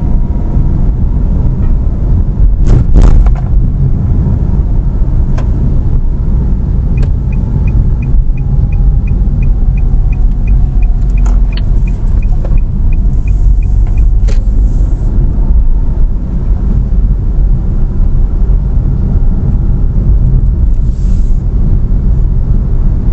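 Steady low engine and road rumble inside a moving car's cabin. A brief knock comes about three seconds in, and midway the turn-signal indicator ticks about three times a second for some seven seconds.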